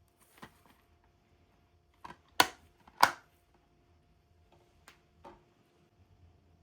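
Hands handling a boxed 4K disc set: a few scattered taps and clicks of the packaging, with two sharp, loud clicks about half a second apart near the middle.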